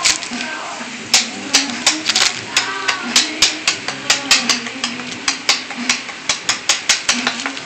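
Kitchen knife blade chopping into a tree trunk: a fast, uneven run of sharp knocks, about two or three strikes a second, quickening toward the end as the blade chips away at the wood.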